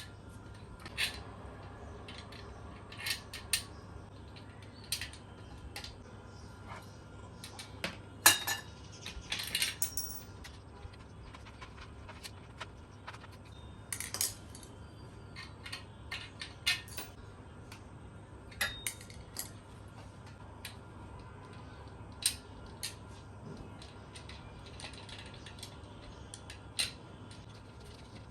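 Irregular metallic clinks, clicks and knocks of table parts being handled, with a cluster of them about eight to ten seconds in, over a steady low hum.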